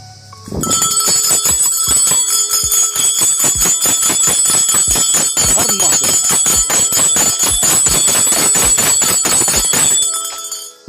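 Hindu temple bell rung rapidly and continuously, many strikes a second with a steady high ring. It starts about half a second in and stops abruptly near the end.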